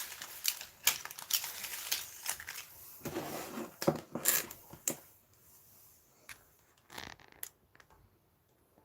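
Packaging and product items being handled: crinkling and a dense run of sharp clicks and taps for about five seconds, then a few scattered taps as the handling dies down.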